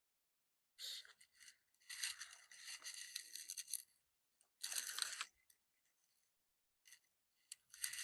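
Faint scraping and rustling from parts being handled and worked during the handlebar assembly of a mini motorcycle, in several short bursts with the longest in the middle.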